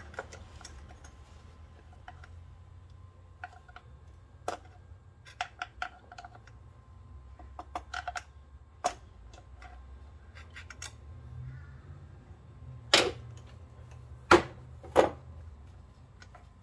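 Scattered metal-on-plastic clicks and ticks of a long Phillips screwdriver prying an old PCV valve out of its seat in the engine, with three louder sharp knocks near the end, over a faint low hum.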